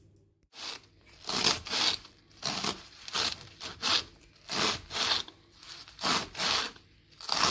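Kitchen knife chopping leafy greens and their stalks on a wooden cutting board: rough, scraping cuts at about two strokes a second.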